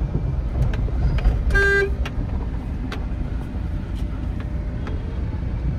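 Steady low road and engine rumble of a car being driven, heard from inside, with one short car-horn toot about a second and a half in.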